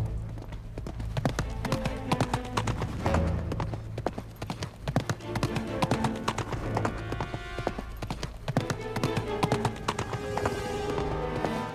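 A horse galloping on a dirt track, its hoofbeats coming fast and close together, over background film music.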